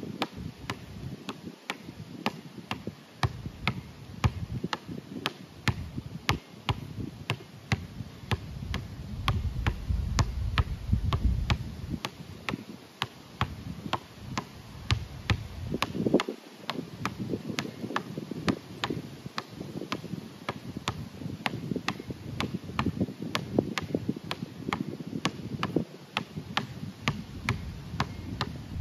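Basketball being dribbled hard on an outdoor court surface, a steady run of sharp bounces a little over two a second, with crossovers between hands.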